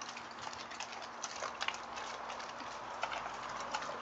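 Great Dane crunching raw chicken backs, bones cracking in irregular sharp clicks several times a second.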